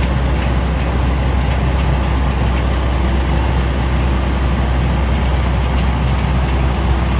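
Fortschritt E514 combine harvester running while cutting: a loud, steady low engine drone with a constant clatter and rush of machinery over it.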